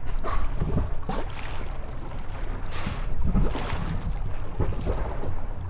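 Wind buffeting the microphone over a low rumble, with water sloshing and splashing against a small boat's hull in several short rushes.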